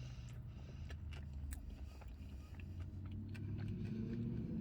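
Low, steady hum of a car's running engine heard inside the cabin, growing slightly louder near the end, with scattered small clicks.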